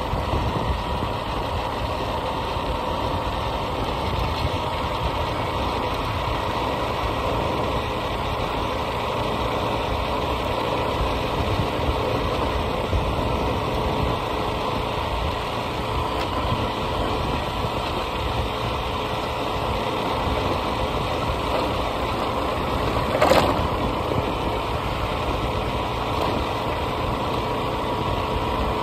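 A vehicle engine running steadily while travelling, with a faint steady whine over the rumble. There is one short sharp knock about 23 seconds in.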